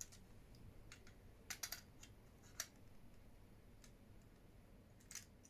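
Near silence with a few faint small clicks from handling a disposable camera's flash circuit: a pair about a second and a half in, one more a second later, and another near the end.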